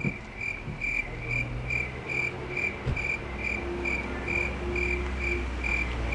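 An insect chirping steadily, about two to three evenly spaced chirps a second, over a low steady rumble.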